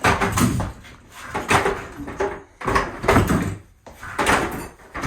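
A house's back door being worked open and shut, with about five loud scraping, knocking movements roughly a second apart. The door is one that, in the owner's words, has some issues.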